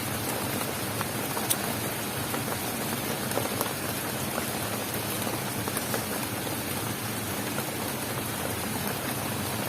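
Heavy rain pouring steadily, with a few sharper drop ticks standing out.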